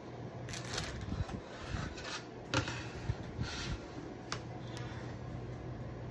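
Scattered clicks, taps and rubbing from handling craft paint bottles and brushes at a work table, with one sharper click about two and a half seconds in, over a steady low hum.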